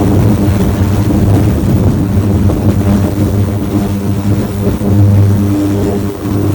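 A motor running with a steady low hum that swells slightly about five seconds in.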